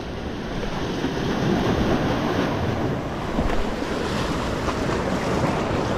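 Sea waves breaking and washing against the boulders of a rock breakwater, with wind rumbling on the microphone.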